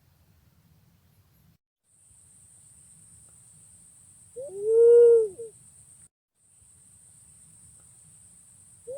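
Green pigeon (punai pink) giving one long, mellow hooting coo in the middle, rising then falling in pitch. A second coo starts at the very end. It is a lure call for attracting wild punai.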